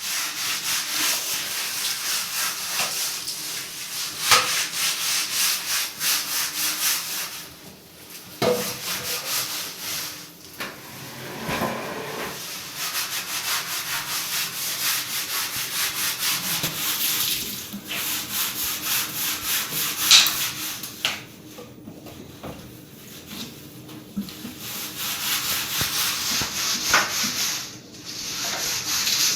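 Repeated rubbing strokes of house cleaning, something scrubbed back and forth over a surface in a quick steady rhythm, with a few short pauses and several sharp knocks along the way.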